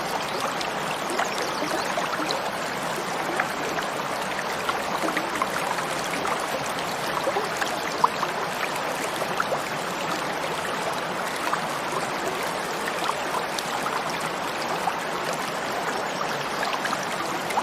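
Mountain stream flowing steadily over rocks, an even rushing with small splashes and trickles throughout, and one brief sharper splash about halfway through.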